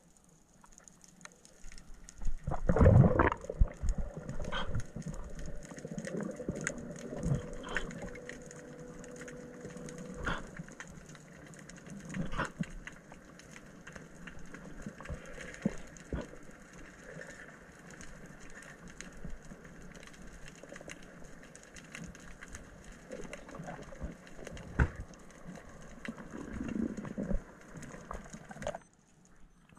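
Underwater sound picked up by a camera in its housing: many scattered short clicks and knocks, a loud rush about three seconds in, then a steady hum for several seconds.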